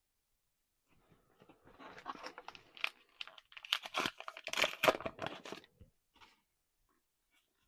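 A foil trading-card booster pack crinkling and tearing open, loudest around four to five seconds in.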